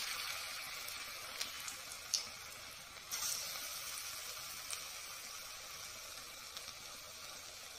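Urad dal bonda batter balls deep-frying in hot oil: a steady sizzle with a few small pops, growing louder about three seconds in.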